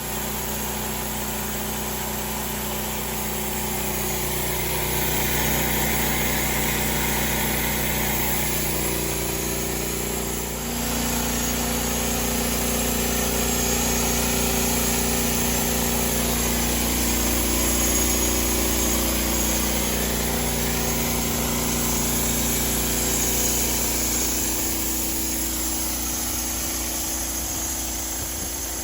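Engine of a homemade sawmill running steadily, growing louder about four seconds in and dipping briefly near eleven seconds, its pitch shifting a little as it goes.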